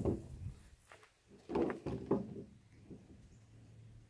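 Folding camping chair being taken apart by hand: the aluminium poles clack and the fabric seat rustles as its corner loops are worked off the pole ends, with a sharp click at the start and a short cluster of knocks about a second and a half in.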